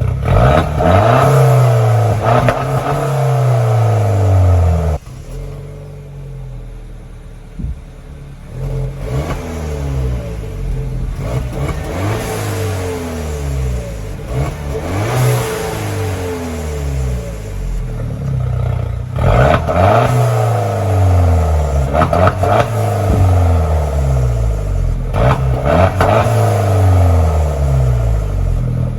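Peugeot RCZ engine and exhaust, fitted with a Guerrilla Bypass exhaust cut-out valve, revved over and over, each rev climbing and dropping back. It drops suddenly to a quieter stretch about five seconds in, then builds back up to loud revving.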